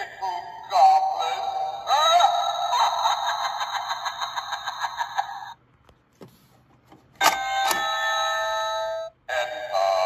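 Vampire doorbell prop playing its electronic tune through its small speaker. The tune stops about five and a half seconds in, and two faint clicks follow. A steady held electronic note sounds for about two seconds, then the tune starts again near the end.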